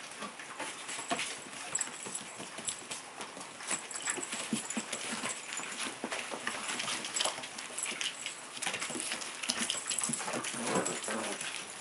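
An adult hound and a litter of puppies scampering and tussling on crinkly puppy training pads: a dense, irregular patter of claws and paws, with pad rustling and scuffling. A brief puppy vocalisation comes near the end.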